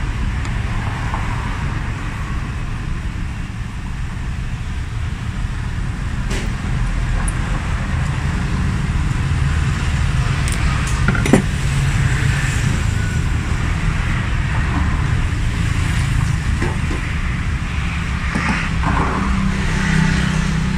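A steady low engine rumble, with a few light metallic clicks and scrapes as a screwdriver and the alternator's rectifier plate are handled; one sharp click about halfway through is the loudest.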